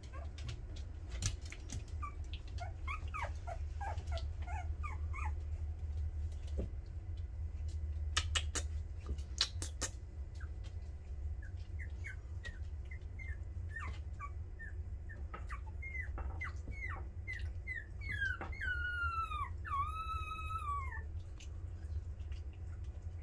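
Young Patterdale Terrier puppies whimpering: bursts of short high squeaks, then a run of short falling whines ending in a longer, wavering whine. A few sharp clicks come about a third of the way in, over a steady low hum.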